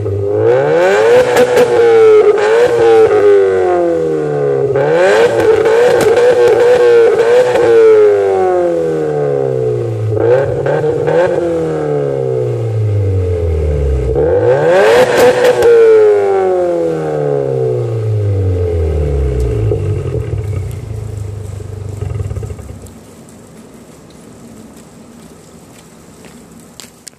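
Engine exhaust through a muffler, revved repeatedly: each rev climbs sharply and then falls back in a long slide. About four-fifths of the way through, the engine note drops away and fades out.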